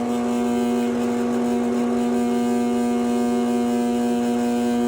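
Loud, steady electrical hum from a 12 kW metal halide lamp running on a magnetic ballast. It is one strong low tone with a stack of evenly spaced overtones above it. The lamp is still warming up under heavy load.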